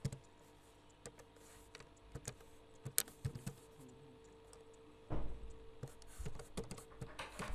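Typing on a computer keyboard: irregular key clicks as a line of code is entered. A low thump about five seconds in, under a faint steady hum.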